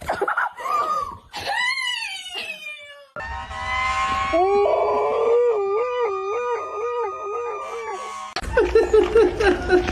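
Dogs howling in a run of short clips with abrupt cuts between them: first high, bending howls, then one long howl that wavers up and down evenly, then louder howling near the end.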